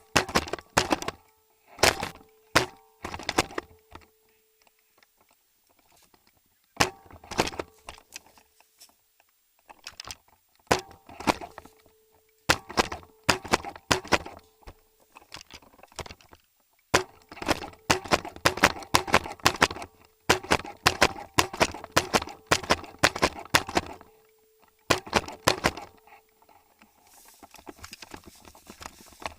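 Airsoft guns firing in rapid bursts of sharp cracks, separated by quiet gaps of a second or two, with a steady hum under several of the bursts. The longest burst, about seven seconds of near-continuous firing, comes past the middle.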